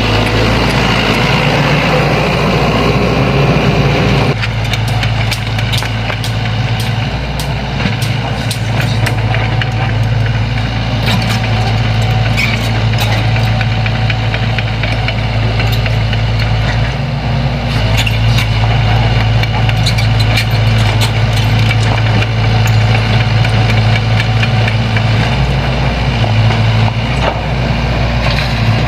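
Sany excavator's diesel engine running steadily with a deep hum. From about four seconds in, scattered light clicks and clatter run over the engine sound.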